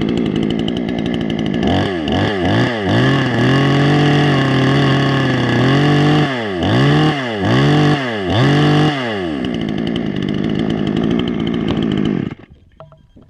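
Budget 'Coochie' two-stroke chainsaw running: idling, then revved in quick blips, held at high revs for about three seconds, blipped several more times, and back to idle before it is shut off about twelve seconds in.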